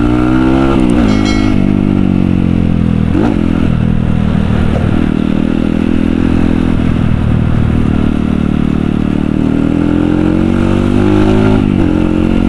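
Kawasaki KLX dirt bike's single-cylinder engine accelerating hard. Its pitch climbs and drops with upshifts about a second in and again about three seconds in, then runs steadily before climbing once more and shifting near the end.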